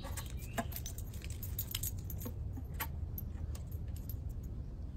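Light metal jingling and clinking: a quick, irregular rattle of small metal pieces that thins out and stops about four seconds in.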